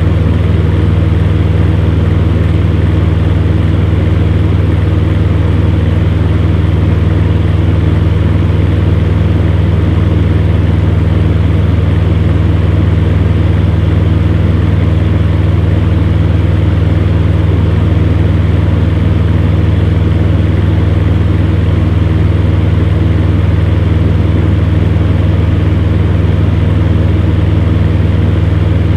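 Electric fan heater running steadily: a constant low motor hum with the even rush of air from its fan.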